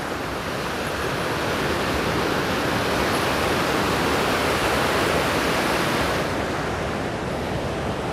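Fast mountain stream rushing over rocks in white-water rapids, a steady loud wash of water. It gets slightly duller after about six seconds.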